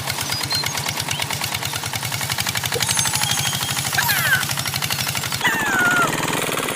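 Tractor engine running with a rapid, even putt-putt of about a dozen beats a second. A few short high sliding cries or whistles come over it about four seconds in and again near the end.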